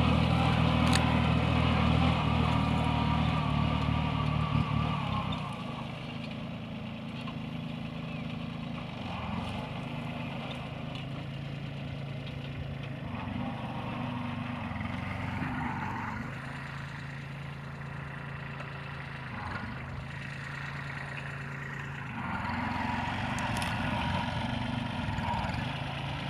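Kubota mini tractor's diesel engine running steadily under load while its rear-mounted implement works the soil between sugarcane rows. It is close and loud at first, then quieter from about five seconds in as the tractor moves away.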